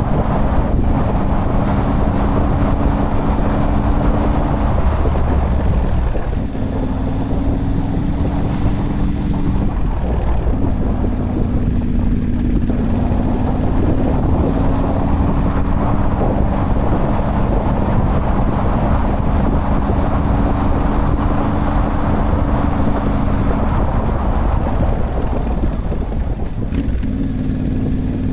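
Motorcycle engine running under way, its pitch stepping up and down several times as the revs change, with wind buffeting the microphone.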